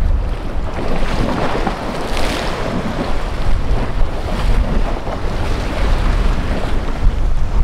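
Wind buffeting the microphone in an uneven, gusty low rumble, over a noisy wash of water and waves.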